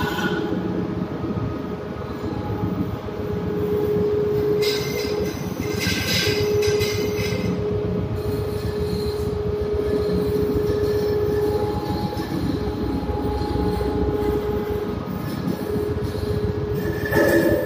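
Ship's steering gear machinery running in the steering gear room: a steady mechanical hum and rumble, with a whining tone that comes in and drops out several times.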